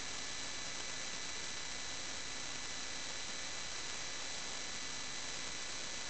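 Steady electronic hiss with faint constant whining tones from a sewer inspection camera's recording system, with no other sound.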